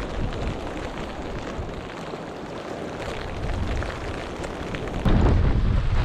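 Storm wind buffeting the microphone with a low rumbling roar, easing off briefly and then hitting hard again in a sudden gust about five seconds in.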